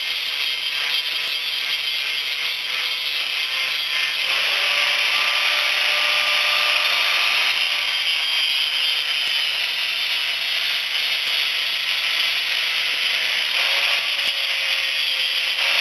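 A power grinder running steadily against a crankshaft, grinding metal off to bring it into balance. It grows louder and harsher about four seconds in.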